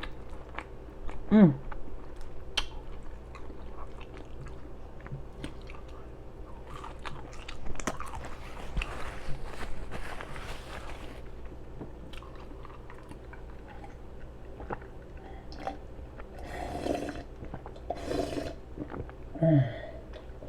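A person chewing a burger with loud, wet lip-smacking, close to the microphone. The smacking comes as many short clicks, with a couple of brief vocal sounds, one about a second and a half in and one near the end.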